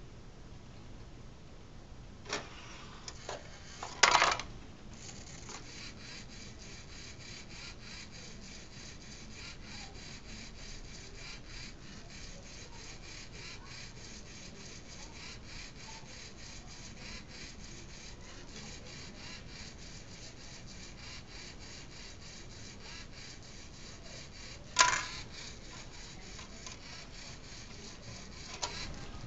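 Lego Mindstorms NXT robot CD/DVD changer at work: a few clicks and then a loud plastic clatter about four seconds in as the DVD drive ejects and the disc falls out, followed by a steady rapid mechanical ticking of several ticks a second while the Lego mechanism runs. About 25 seconds in a single sharp clack as the next disc drops from the stack onto the open drive tray.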